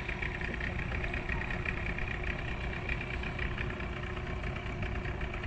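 Small boat's motor running steadily while under way, an even engine drone with a fast regular pulse.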